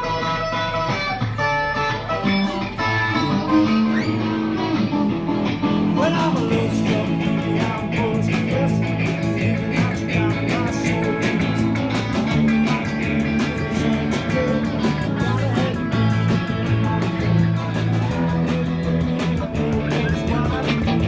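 Live band playing through amplifiers: electric guitars and bass open, and drums and cymbals come in about six seconds in.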